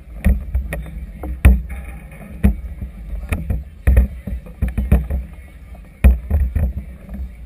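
Choppy river water slapping against the hull of a moored floating clubhouse: irregular knocks and splashes, several a second at times, over a steady low wind rumble on the microphone.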